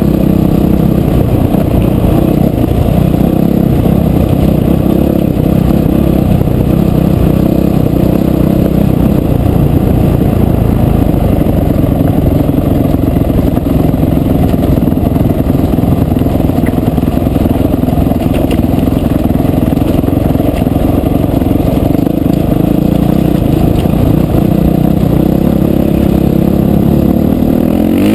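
Off-road motorcycle engine running at a steady riding speed, mixed with wind noise and the clatter of tyres on gravel.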